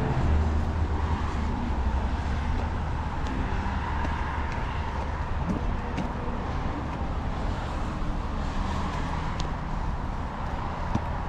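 City street traffic: cars passing, a steady low rumble of engines and tyres that is a little louder in the first second.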